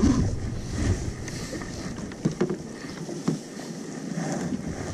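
Wind buffeting the microphone on a fishing kayak, dying down about a second and a half in, with a few light knocks as a caught rockfish is handled and put on a rope stringer.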